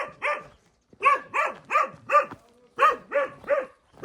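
A dog barking repeatedly, about three barks a second, in short runs of three or four with brief pauses between them.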